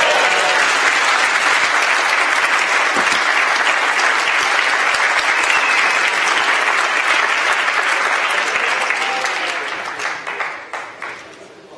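A large audience applauding: dense, steady clapping that dies away near the end, leaving a few scattered claps.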